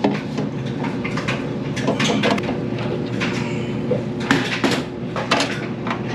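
Irregular metallic clicks and clinks of a 7/16-inch nut driver working security screws out of the sheet-metal body of a Speed Queen commercial washer, over a steady low hum.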